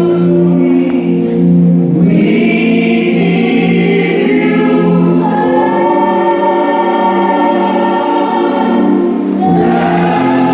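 A group of voices singing together in harmony, holding long chords that change about two seconds in and again near the end.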